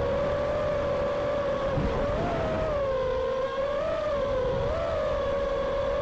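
Brushless motors of a small FPV quadcopter whining steadily, the pitch rising and dipping slightly a few times with the throttle, over a low rush of wind noise.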